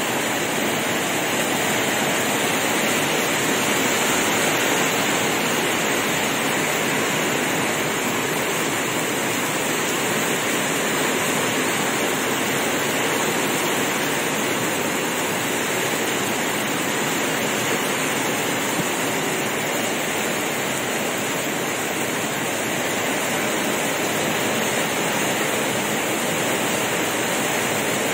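Heavy rain pouring down in a steady, dense hiss that does not let up.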